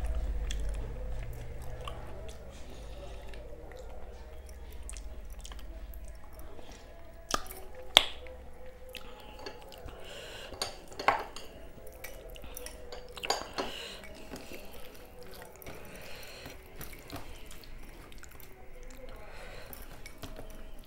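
Close-up eating sounds: chewing and fingers mixing soft rice with mashed vegetables on a steel plate, with a few sharp clicks, the loudest about eight seconds in. A low hum fades out about six seconds in.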